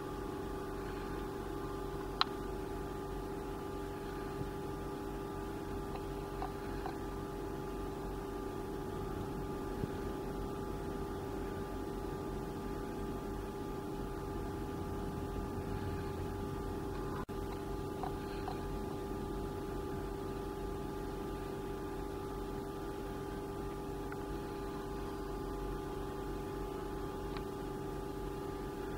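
Steady electrical equipment hum made of several constant tones over a low rumble, with a few faint clicks.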